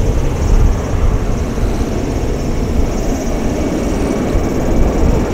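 Boeing 737-800's jet engines running at power as it rolls along the runway, a steady loud low rumble.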